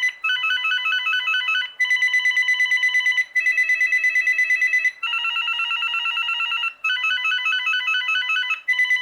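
VTech CS6114 DECT 6.0 cordless handset previewing its ringer tones one after another: electronic warbling ring patterns, each playing for about a second and a half before the next one starts, about six in turn.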